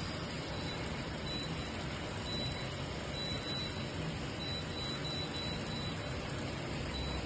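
Water running steadily from an instant electric water heater's faucet or shower head, an even hiss with a faint high-pitched tone that comes and goes.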